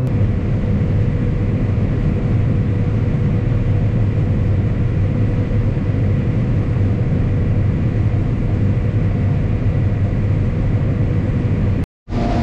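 John Deere S540 combine running while harvesting corn: a steady machine drone with a faint steady whine. The sound cuts out for a moment near the end.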